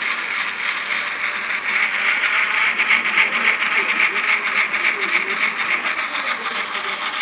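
Model train's DCC sound decoder playing a locomotive engine sound through its small speaker: a steady, thin, hissy engine sound with no bass. The decoder is partly broken, so the engine sound comes out wrong.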